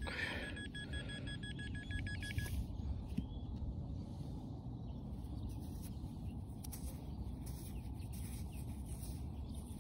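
Metal-detecting pinpointer beeping rapidly in one steady high tone as it sits over a buried coin, stopping about two and a half seconds in. Low rustling and handling noise follows as the soil plug is broken open.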